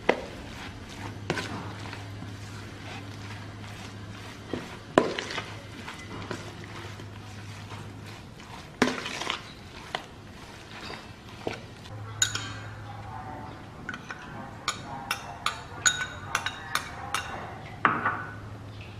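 Marinated pork pieces being mixed by hand and spoon in a plastic bowl, with soft irregular knocks and squelches. Later a metal spoon stirs dry flour in a ceramic bowl, clinking against its sides about three times a second near the end. A low steady hum runs underneath.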